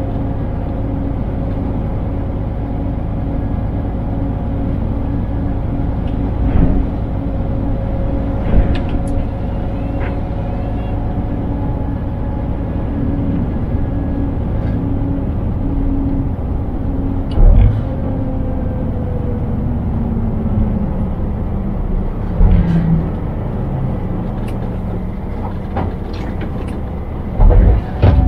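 Scania truck driving, its diesel engine giving a steady drone whose pitch drops about two-thirds of the way through as the revs fall. Several short knocks come through, the loudest a little past the middle and near the end.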